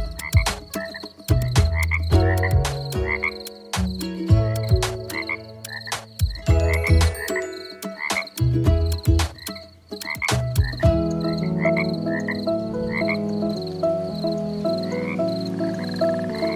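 A chorus of frogs croaking, many calls overlapping, with frequent clicks and short rising chirps.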